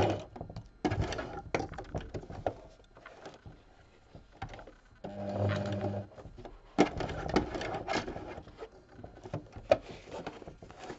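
Electric sewing machine stitching in short bursts: a brief run at the start and another of about a second midway. Between the bursts, fabric rustles and sharp clicks come from handling the machine as the work is pivoted.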